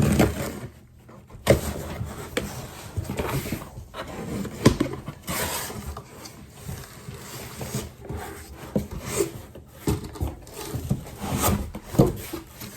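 A knife slitting the tape down the middle of a sealed cardboard box, then the box flaps and packaging handled: irregular scraping, rustling and knocks, the sharpest about a second and a half in and near five seconds in.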